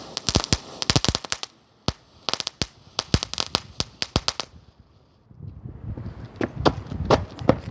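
Firecrackers going off: a rapid run of sharp cracks in quick clusters for about four and a half seconds, then they stop.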